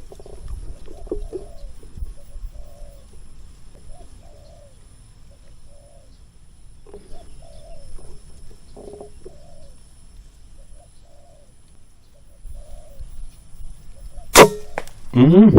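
Spotted dove cooing in repeated short phrases. Near the end a silenced air rifle fires once with a single sharp crack, the loudest sound, followed by a brief rising sound.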